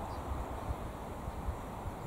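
Wind gusting on the microphone: an uneven low rumble over a faint steady hiss.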